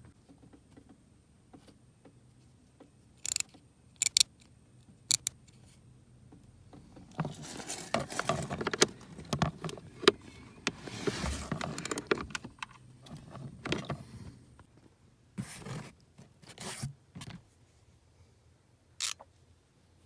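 Hand tools and metal parts being handled during a blower motor replacement: scattered sharp metallic clinks, and a longer stretch of scraping and rustling full of small clicks in the middle.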